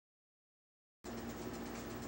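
Dead silence for about a second, then a steady faint hiss with a low hum as the recording starts: room tone, no distinct event.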